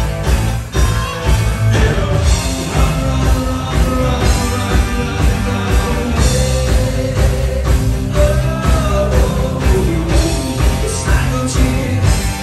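Live rock band playing: electric guitar and a drum kit keeping a steady beat, with the lead singer singing over them.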